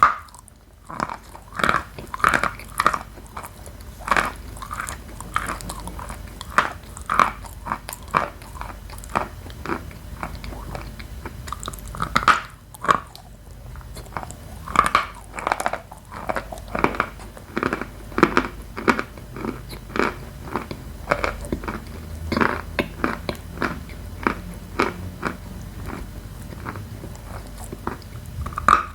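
Dry edible chalk, the very crunchy Khrapovsky kind eaten with purple Astana, being bitten and chewed: a long irregular run of sharp crunches, several a second, with softer chewing between them.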